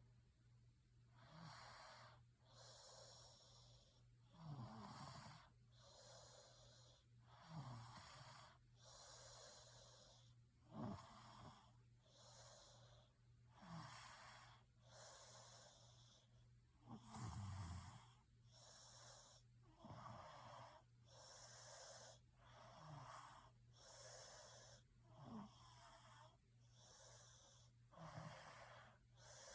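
A person snoring faintly in steady rhythm. Breaths in and out follow each other about every 1.3 seconds, and a low snore comes on every other breath, over a steady low hum.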